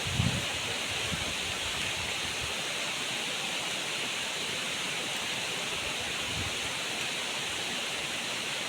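Waterfall's rushing water, a steady even hiss, with a brief low bump on the microphone just after the start.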